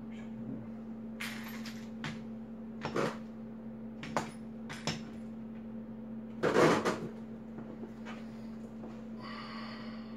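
Hand tools and cable parts handled at a road bike's rear derailleur: a series of short clicks and knocks, the loudest about six and a half seconds in, over a steady low hum.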